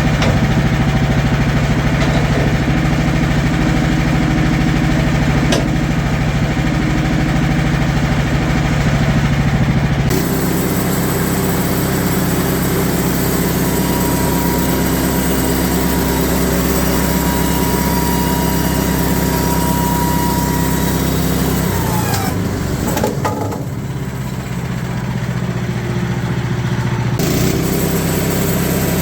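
Portable bandsaw sawmill's gasoline engine running steadily while the mill saws a maple board. The sound changes abruptly about ten seconds in and again a few seconds before the end.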